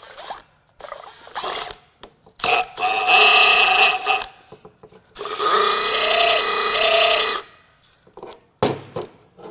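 Cordless power tool running in two bursts of about two seconds each, a second apart, backing out bolts as the engine's oil pump is taken off.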